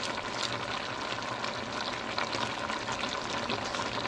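Pot of pinakbet vegetable stew cooking on the stove, a steady crackling sizzle and bubble.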